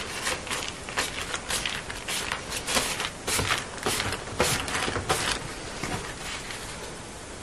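Baking parchment crinkling and rustling as it is lifted to roll up a sheet of cinnamon-bun dough: a quick, irregular run of crackles that dies away about five seconds in.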